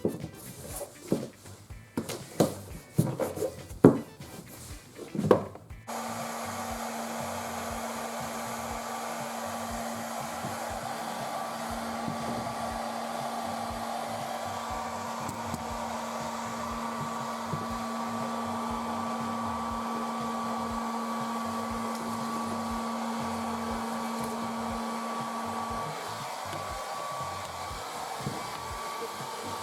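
A few knocks and clicks of handling, then a small electric blower switches on about six seconds in. It runs steadily with a low hum and a faint higher whine. Near the end the hum drops out and the blower runs on a little quieter.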